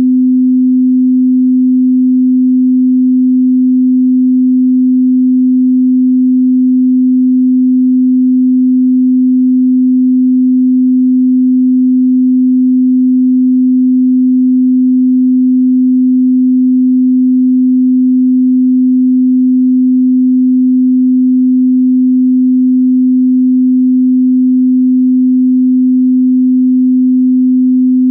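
A steady, pure 255 Hz sine-wave test tone, held at a constant pitch and level with no other sound.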